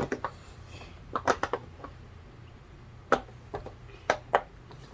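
Bubbles of a lollipop-shaped silicone pop-it fidget toy being pushed through one after another: about a dozen short, sharp pops in small irregular clusters.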